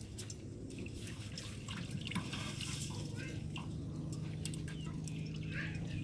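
Water dripping and splashing in short, irregular clicks and patters, over a steady low hum.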